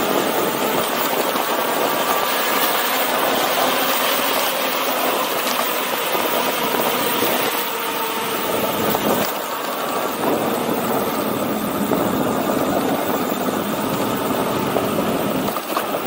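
Steady rushing riding noise of an e-bike moving at speed on concrete: tyre roar and air rushing past, with a faint whine from its 2000 W rear hub motor.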